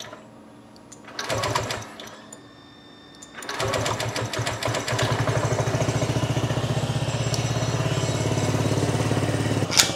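SYM MMBCU (Mamba) scooter's single-cylinder engine cranked twice on the electric starter without firing, then catching on the third try about three and a half seconds in and running at a steady fast idle. The hard start and high idle are, per the owner, from throttle-body cleaner still in the intake after a throttle body cleaning.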